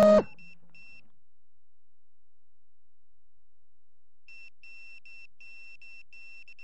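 FPV quadcopter's electric motors whining and then cutting off abruptly just after the start, as the crashed drone comes to rest upside down in grass. After that, a small electronic beeper sounds a few short high beeps, and from about four seconds in a steady run of short beeps, about three a second.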